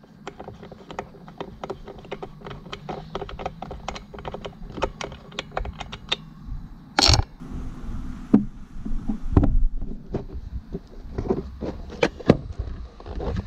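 Hands working on a motorcycle during reassembly: a run of small, uneven clicks and knocks of hard plastic and metal parts being handled and fitted, with a louder knock about seven seconds in.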